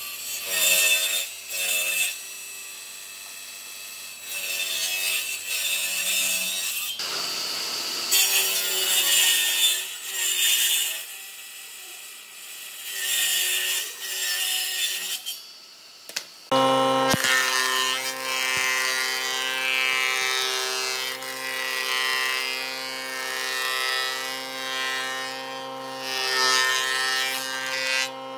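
Heavy woodworking planer machinery cutting old, weathered boat timber: repeated loud bursts of cutting as boards pass the cutters, over the steady hum of the running machine. About 16 seconds in the sound changes to a steadier, stronger machine hum with the cutting going on over it.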